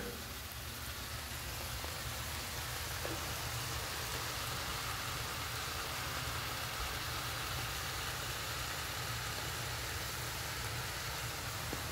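Chicken, onions and peppers sizzling and simmering in a frying pan as their liquid cooks off, a steady hiss over a low hum.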